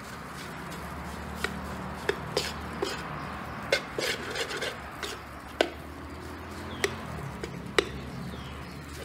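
Metal spatula scraping and knocking against a metal wok as fried rice is stir-fried, with irregular sharp clicks scattered through.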